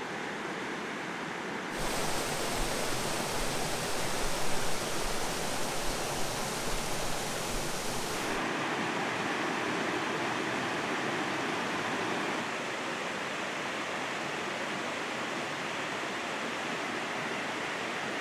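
Steady rush of water from a rocky mountain trout stream and its falls, with no distinct events. It grows louder about two seconds in and eases again around eight seconds and once more around twelve seconds.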